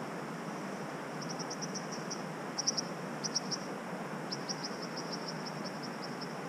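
Steady rushing of river water, with runs of short, high ticking chirps starting about a second in, coming in quick groups of several a second with brief gaps.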